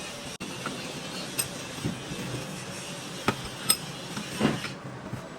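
Hand tools and metal parts of a tractor diesel pump clinking and tapping as they are worked on: about five sharp, light clicks, the loudest a little before four seconds in, over a steady background hiss.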